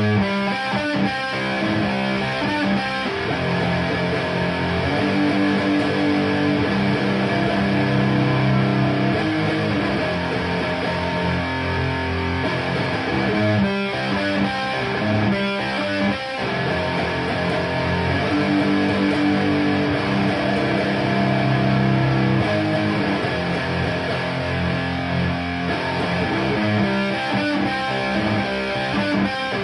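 Electric guitar with DiMarzio Fred pickups played through a Framus Cobra 100 W valve head and a Marshall MF400A cabinet with Celestion G12K-100 speakers. It plays rock/metal riffs with held chords and short choppy passages.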